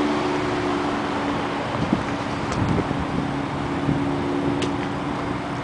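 Steady road-traffic noise with a low engine hum, plus a couple of faint light ticks.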